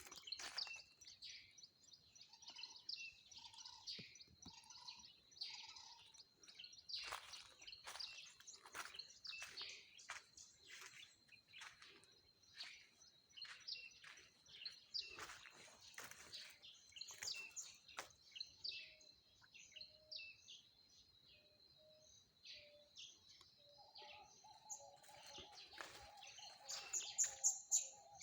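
Several birds chirping and calling in quick, overlapping short notes, with a few short lower notes about a second apart early on and a longer, lower warbling call starting near the end. A thin, steady high tone runs underneath.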